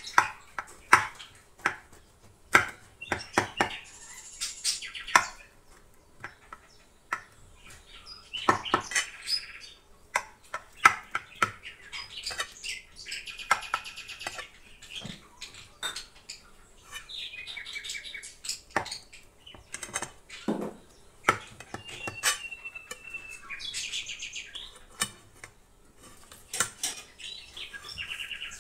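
A knife cutting through soft baked börek and repeatedly clicking and scraping against the glass pie dish, in many irregular sharp taps. Birds chirp now and then in the background.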